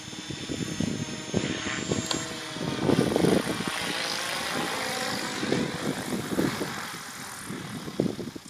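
Alien 600 V2 radio-controlled helicopter descending in autorotation, its main rotor blades whooshing as they windmill, with low buffeting on the microphone throughout. A sharp knock near the end as it touches down on the grass.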